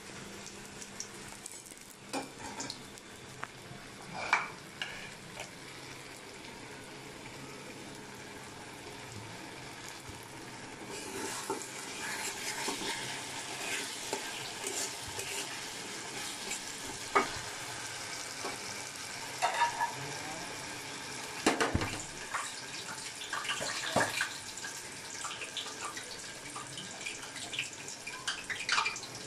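Food sizzling in a karahi as a metal spatula stirs and scrapes it, with sharp clinks of metal on the pan now and then. The sizzle gets louder about a third of the way in.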